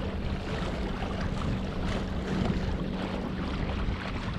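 Choppy water splashing and lapping against a pedal kayak's hull as it moves, with a faint steady low hum underneath.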